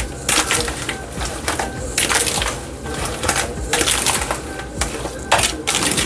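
Knife chopping on a cutting board while mincing seasoning: irregular sharp strokes, some in quick runs.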